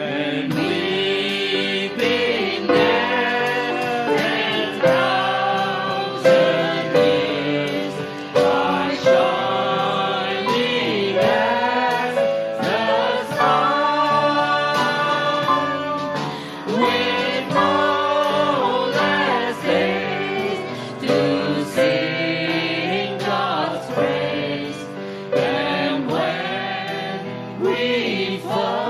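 A congregation singing a worship song, accompanied by piano and drums.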